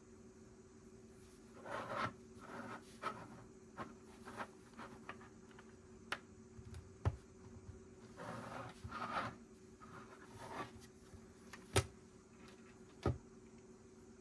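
Loose plastic Lego pieces being handled: short bursts of rummaging and rattling, and a few sharp clicks as bricks are pressed together or set down, the loudest about twelve seconds in.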